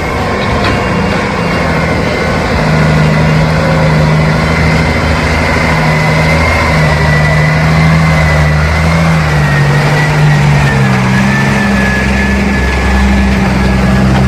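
Heavy truck engine running steadily, its low note shifting pitch a few times, with a thin high whine alongside.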